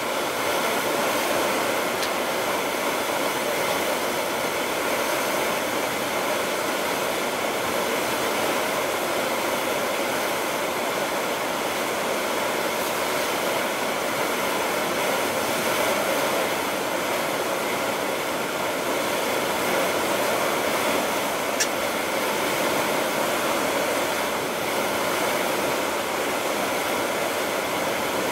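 Steady rushing noise aboard the expedition ship MS Fram under way, water and ship machinery blending into an even hiss with a faint hum.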